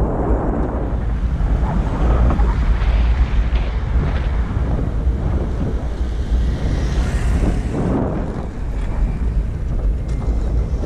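Wind buffeting the microphone of a rider on a moving electric all-terrain skateboard: a loud, steady low rumble with a rushing noise.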